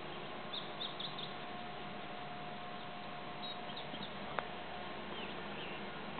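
Small birds chirping in short, high calls, in two scattered runs, over a steady background hiss, with a single sharp click a little after four seconds in.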